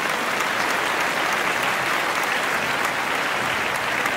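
Audience applauding: dense, steady clapping with no break.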